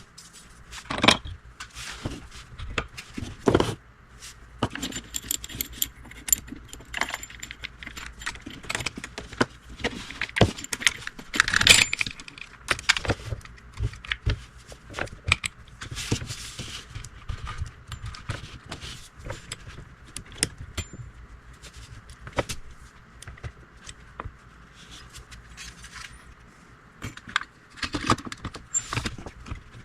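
Small metal parts clinking and jangling as a loose saw chain is handled and fitted to the bar of an Echo CS271T chainsaw: irregular light clicks and rattles, with the loudest clatter about eleven to twelve seconds in.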